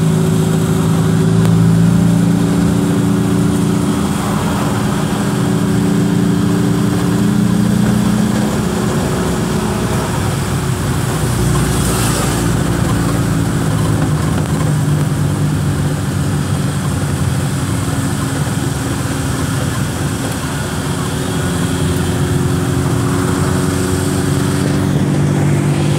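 Engine and road noise of a passenger van heard from inside its cabin: a steady running hum whose pitch shifts as the van changes speed.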